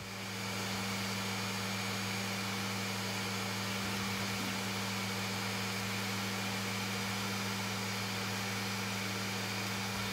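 3D printer running as it prints a small plastic part: a steady whir of its cooling fans with a low, even hum.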